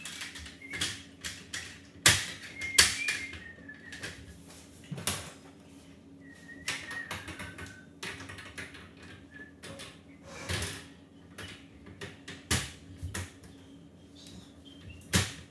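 Metal clicks, knocks and rattles of a folding portable grill table being set up: the metal frame, slatted top and wire shelf rack being fitted into place. The knocks are irregular, the loudest about two seconds in and just before the end.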